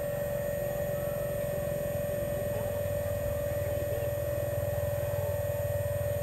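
Steady whine of a scale RC hydraulic excavator's pump motor running, holding one even pitch over a low rumble.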